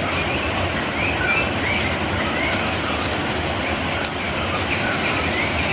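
Birds chirping repeatedly over a loud, steady rushing noise in tropical rainforest.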